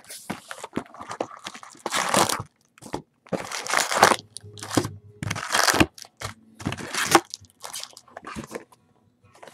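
A cardboard trading-card box being torn open and its foil-wrapped card packs handled, with irregular bursts of tearing, crinkling and crunching.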